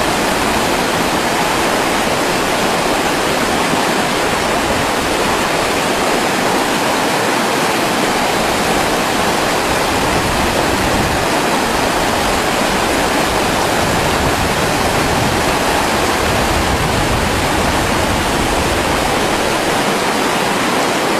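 Fast-flowing river water rushing, a loud, steady, unbroken noise.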